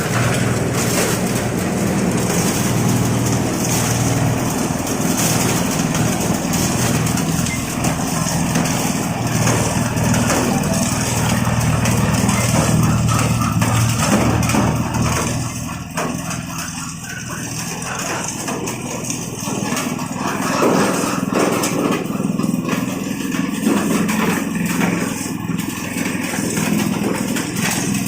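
Compost-sifting machine running, powered by a 5.5 HP single-cylinder petrol engine through a reduction gearbox. The engine hums steadily throughout and dips in loudness briefly about halfway through before picking up again.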